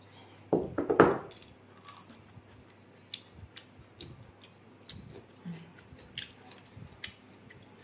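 Eating sounds: a quick cluster of knocks about half a second in, then scattered small clicks of utensils against a bowl.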